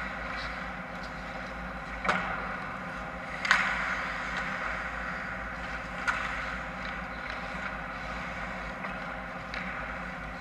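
Ice hockey play: sharp clacks of sticks and puck, the loudest about three and a half seconds in, with others about two and six seconds in and a softer one near the end, over a steady hum and the noise of skates on the ice.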